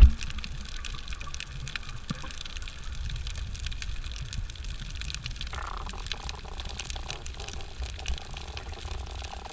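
Underwater sound heard through a camera housing: a low rumble of moving water with scattered faint crackling clicks, and a thump at the very start. About halfway through, a faint steady hum joins in.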